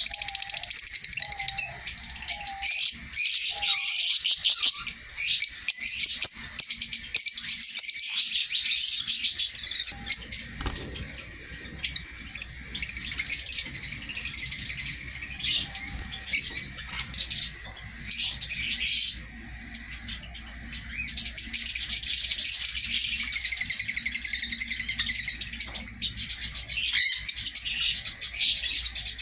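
A flock of small aviary birds chirping and chattering continuously in a dense, high-pitched chorus, with a few brief lulls.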